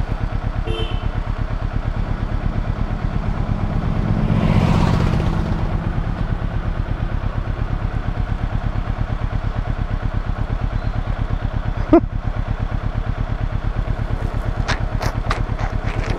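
Vehicle engine running at a steady pace with an even, rapid pulsing beat. A rush of noise swells and fades about four to five seconds in, and there is a single sharp click about twelve seconds in.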